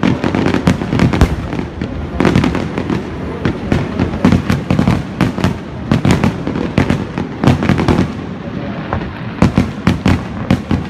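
Aerial firework shells bursting, an irregular run of sharp bangs and crackles several times a second over a low rumble. The bangs thin out briefly about eight seconds in, then pick up again.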